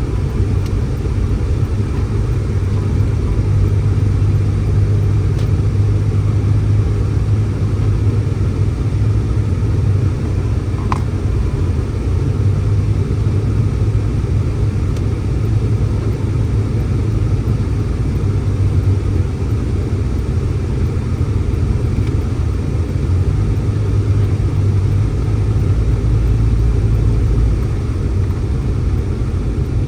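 Blizzard wind buffeting the microphone: a loud, steady low rumble that swells and eases slightly.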